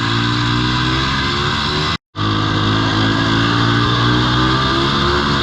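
Single-cylinder two-stroke 340cc Sachs engine of a 1970 Moto Ski Grand Prix snowmobile running steadily, its pitch rising a little near the end. The sound drops out completely for a moment about two seconds in.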